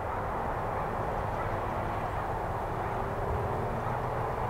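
Steady outdoor background noise: an even rush with a faint low hum under it, unchanging throughout.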